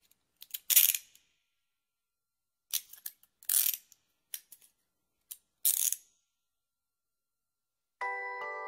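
Wind-up music box being wound: several short spurts of ratcheting clicks from the winding key. Near the end a tinkling, bell-like melody begins.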